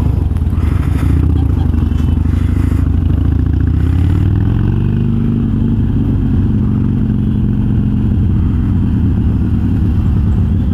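Harley-Davidson Sportster V-twin running through Vance & Hines Twin Slash 3-inch slip-on mufflers fitted with quiet baffles, under way on the road. Its exhaust note rises about four seconds in as the bike accelerates, then holds steady.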